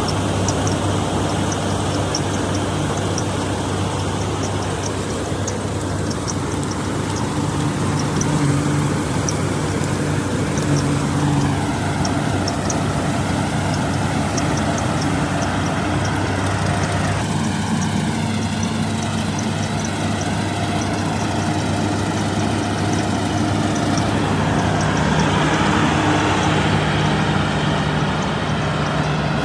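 Combine harvester's diesel engine running steadily under load while harvesting wheat, with the threshing machinery going, and a light, regular ticking above the engine note.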